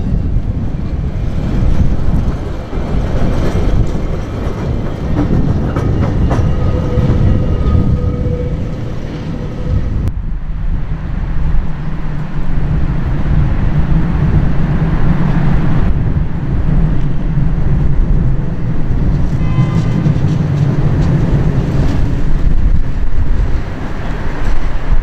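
Vintage electric trams running on street track: motor hum and wheels on the rails, over a steady low rumble. The sound changes abruptly about ten seconds in, and then a tram draws closer, growing louder near the end.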